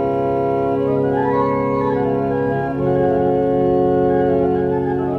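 Church organ playing slow, sustained chords, moving to a new chord a little under three seconds in.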